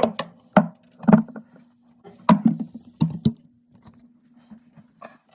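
Refrigerator fan motor running with a steady low hum, overlaid by irregular sharp knocks and clicks. The hum stops near the end.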